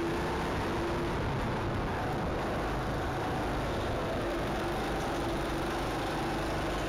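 Go-kart engine running steadily at speed, mixed with a dense rush of tyre and air noise, heard from on board the kart.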